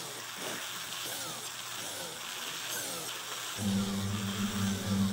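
Flexible-shaft rotary tool drilling small holes through a glossy magazine cover, its whine wavering in pitch as the bit bites. About three and a half seconds in, a steady low hum comes in.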